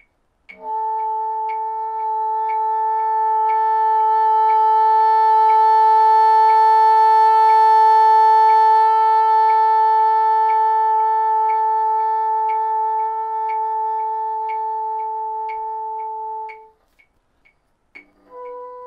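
Bassoon playing one long sustained high note in its top octave, swelling to a crescendo and tapering off in a diminuendo, with some quiver and unsteadiness in the tone. A faint steady click sounds about once a second under it. A new, slightly higher note starts near the end.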